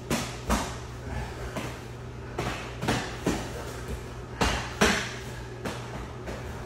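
Grapplers rolling on foam mats: irregular thuds and scuffs of bodies and limbs hitting the mat, about a dozen in all, over a steady low hum.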